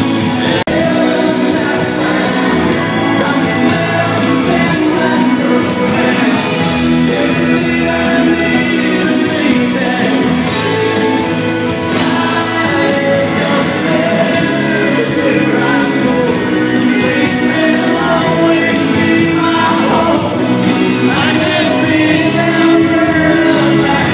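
Loud amplified live music with a singer over a steady beat, from a stage sound system.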